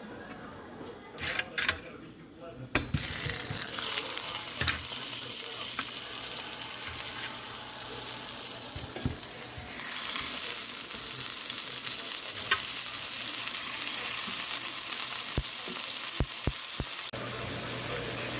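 Food hits a hot frying pan about three seconds in and sizzles steadily from then on, with a few sharp clicks of a utensil stirring it.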